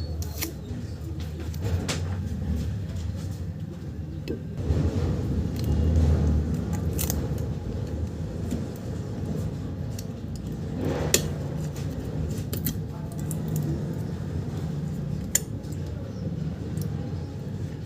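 Small metal repair tools clicking and scraping against a phone's circuit board while the display connector is worked loose, over a steady low hum.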